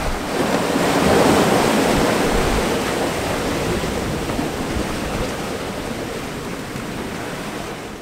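Squall wind and a rough, breaking sea rushing around a sailboat's cockpit, with wind buffeting the microphone. The rush swells about a second in, then slowly eases off.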